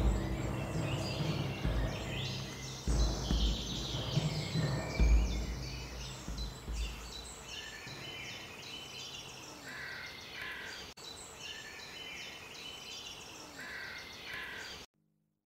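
A chorus of wild birds chirping and calling, many short quick calls overlapping, with a few deep thuds in the first five seconds. The bird chorus cuts off abruptly just before the end.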